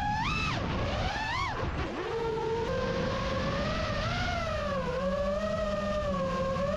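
Brushless motors and propellers of a 5-inch FPV freestyle quadcopter whining as heard from on board, the pitch sweeping up and down with the throttle. Two quick rising-and-falling punches come in the first two seconds, then a steadier whine that dips about five seconds in, over a low rush of air.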